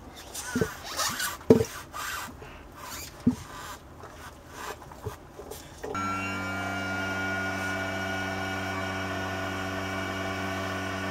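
Irregular taps and knocks, then about six seconds in a boat's electric trim motor starts suddenly as the trim button is held. It runs with a steady hum and a faint, slightly falling whine.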